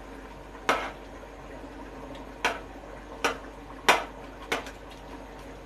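Metal ladle knocking against the side of a metal cooking pot while stirring a curry, five sharp knocks at uneven intervals.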